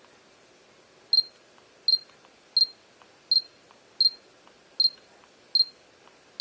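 Samsung NX30 mirrorless camera giving its autofocus-confirmation beep each time focus locks as it refocuses back and forth between near and mid-distance subjects. There are about seven short high beeps, evenly spaced at roughly one and a half a second, with faint ticks between them.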